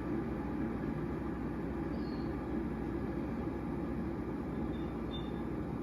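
SMEG mini electric kettle heating water towards the boil: a steady, low rumbling hiss from the water in the kettle, really quiet for a kettle.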